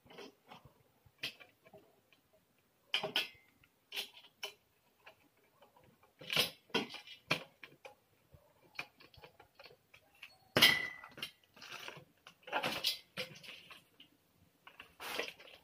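Irregular clicks, taps and knocks of a white metal flat-pack table frame being handled and screwed together by hand. The loudest is a metal clank about ten and a half seconds in that rings briefly.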